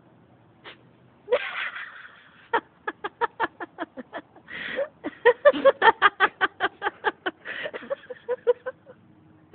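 A puppy sneezes near the start, then a person breaks into hard laughter in rapid bursts of about five a second, broken by gasping breaths.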